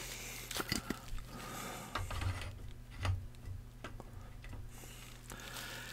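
Faint handling noise: a few scattered light clicks and taps as a metal Funko Soda can is picked up and moved.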